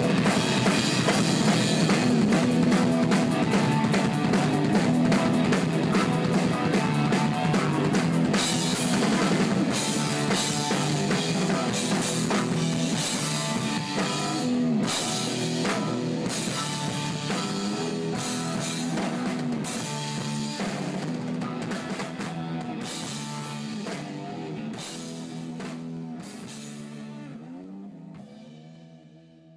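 Live rock band: a drum kit played hard with dense snare and cymbal hits over an electric bass line, fading out over the last few seconds.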